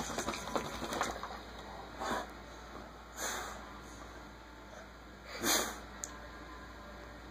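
Wet cocker spaniel rubbing on a bedspread, with quick fabric rustling in the first second, then three short breaths out through its nose as it lies with its chin on the blanket. The last breath, about five and a half seconds in, is the loudest.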